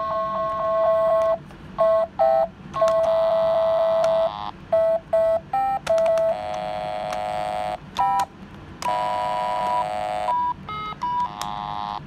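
Simon carabiner keychain game playing its electronic tones: a run of short beeps and longer held notes at several different pitches, with small clicks between them.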